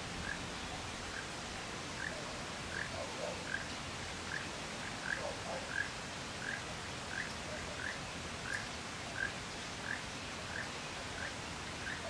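An animal calling a long, even series of short, high notes, about three every two seconds, over a steady outdoor hiss.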